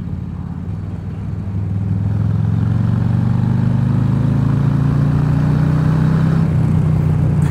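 Harley-Davidson V-twin motorcycle engine under way, its note climbing slowly as the bike gathers speed, heard from the rider's position.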